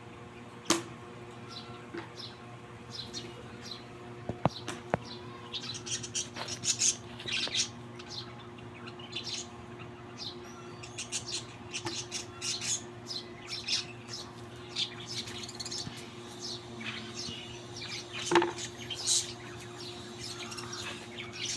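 Caged budgerigars chirping and chattering in quick, scattered high chirps over a steady low hum, with a few sharp clicks.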